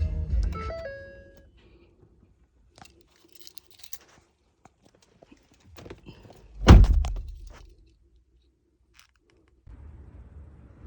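Background music ends in the first second or so, followed by faint scattered clicks and knocks. A single heavy thunk about two-thirds of the way through is the loudest sound, and a steady low hum starts near the end.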